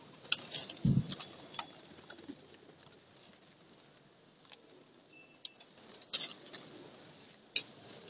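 Flock of feral pigeons taking off, their flapping wings making crackly bursts in the first second and a half and again around six seconds in, with a single low thump about a second in.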